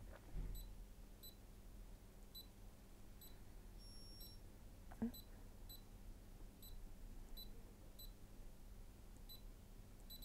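Touchscreen of a Brother Innov-is M280D sewing and embroidery machine beeping with each key press as letters are typed: about a dozen short, high, faint beeps at uneven intervals. About four seconds in comes one longer beep of a different pitch.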